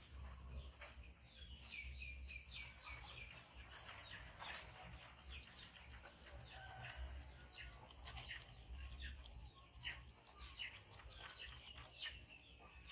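Birds chirping and calling faintly, including a quick run of short falling notes about two seconds in. A single sharp click sounds a little over four seconds in.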